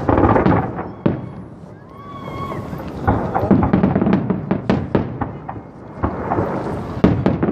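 Aerial firework shells bursting in a public display: a loud burst right at the start, then dense crackling with many sharp pops, and another burst near the end.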